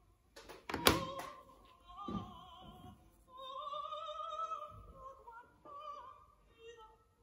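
Opera singing with vibrato playing as background music, a voice holding and sliding between long notes. A sharp knock sounds about a second in, with softer thumps later.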